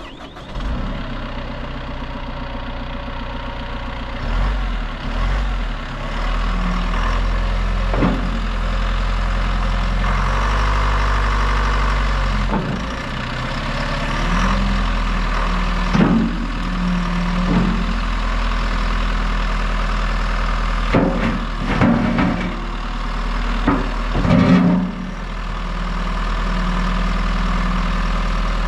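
John Deere 310SL backhoe loader's four-cylinder diesel engine running, its speed shifting a few times. Several short sharp knocks are heard over it, bunched together near the end.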